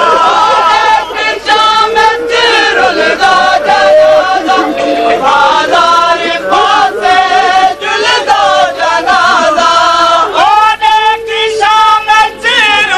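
Noha, a Shia lament, chanted in Punjabi: voices singing the mournful melody with long, wavering held notes.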